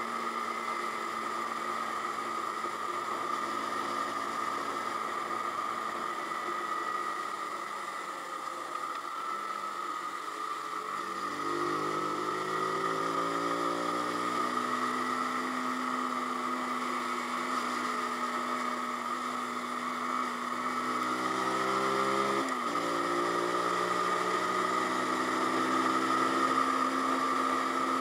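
Zontes G1X 125 single-cylinder engine running on the move. Its pitch falls away, then climbs again, and about three-quarters through it makes a quick drop and recovery like a gear shift.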